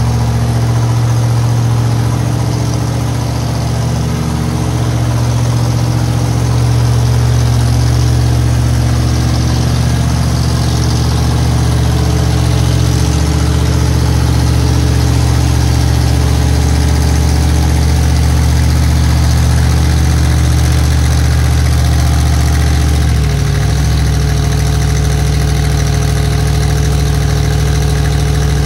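Megalodon Monster Jam truck's supercharged V8 engine idling loudly as the truck rolls slowly. Its note shifts about two thirds of the way through.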